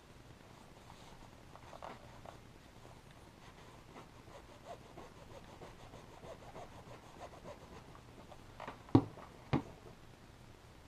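Faint rubbing and rustling of a winter coat's fabric as a torn pocket is pressed down over fusible interfacing, with small scratchy ticks. Near the end come two sharp knocks about half a second apart.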